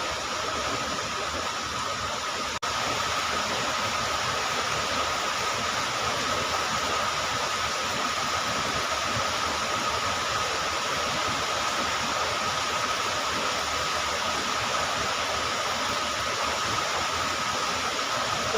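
Steady rush of flowing river water, with a thin steady high tone above it and a brief break about two and a half seconds in.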